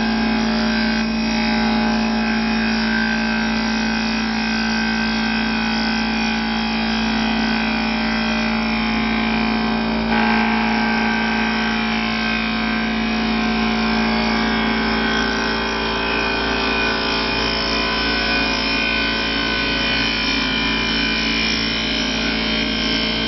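CNC wood lathe running steadily, spinning a wooden spindle while its cutter shaves the wood: a constant machine drone with several steady tones over the noise of cutting.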